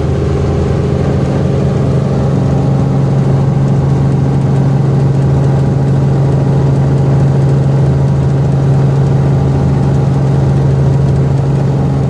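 Robinson R44 helicopter in flight, heard from inside the cabin: its piston engine and rotors make a loud, steady drone with a strong low hum.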